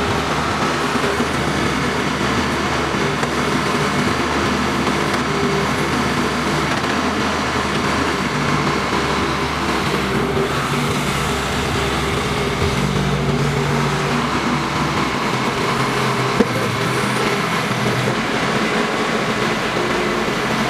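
Crawler excavator running steadily, its engine note shifting a little about three-quarters of the way through, with a single sharp click shortly after.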